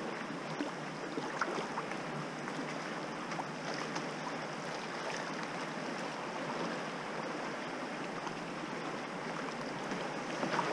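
River water rushing and splashing through a shallow riffle around a kayak, a steady even rush with scattered small splashes.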